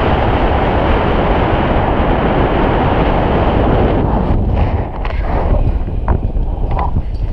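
Wind rushing over a selfie-stick action camera's microphone in flight under a paraglider, a loud steady buffeting roar. It eases a little past the middle, with a few brief ticks.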